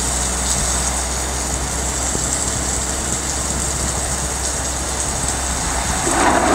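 Steady rushing noise with a constant low rumble from a vehicle driving on a wet road in the rain. Near the end the sound swells louder and a few musical notes come in.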